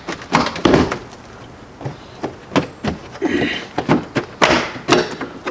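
Ford Flex plastic front bumper cover being pulled away from the fender by hand: an uneven run of sharp plastic clicks and knocks as its retaining clips flex and pop loose, the loudest about four and a half seconds in.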